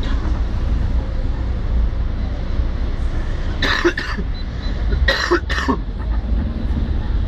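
Steady low rumble of wind and street noise on the microphone, with two short, loud coughs a little over a second apart around the middle.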